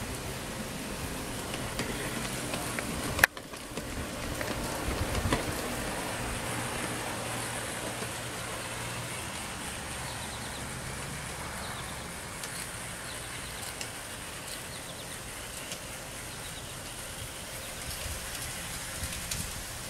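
Pair of G-scale model diesel locomotives running on track power around a garden-railway loop, a steady low motor hum with wheel noise on the rails that fades about halfway through as they move off. One sharp click a few seconds in.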